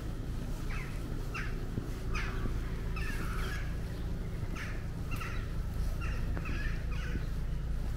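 Crow-family birds cawing: short harsh calls, roughly one a second and sometimes overlapping, over a steady low rumble.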